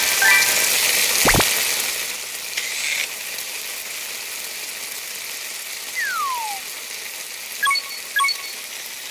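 Cartoon sound effects: a hissing rush with a sharp knock at the start, a single falling whistle about six seconds in, and two short ringing tones near the end.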